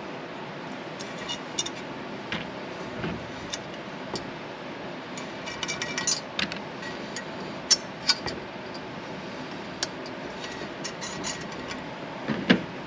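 Small steel flat washers and nylon lock nuts clinking as they are picked from a loose pile and fitted onto the studs of a steel rack foot: scattered light metallic clicks, a few sharper ones past the middle, over a steady faint hiss.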